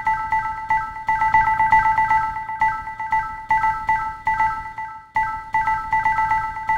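Camcorder menu beeps, electronically processed with effects: a rapid string of short, bright pitched blips on a few fixed notes, several a second, with a brief break about five seconds in.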